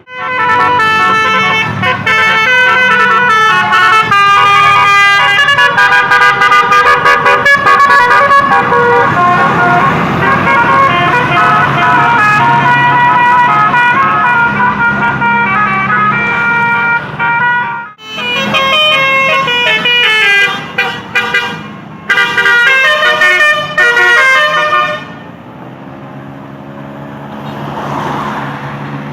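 A bus's Basuri telolet horn, a set of musical air horns, playing a loud stepped melody of changing tones, with a short break about two-thirds of the way through. Near the end the horn stops and only a quieter engine sound remains.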